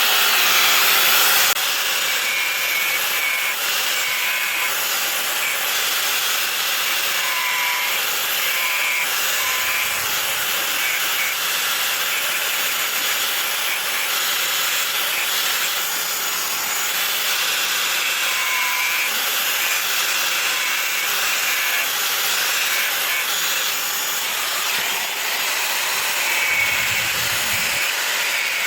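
Power grinder working the steel of a knife blade made from an old car leaf spring, a steady unbroken grinding noise.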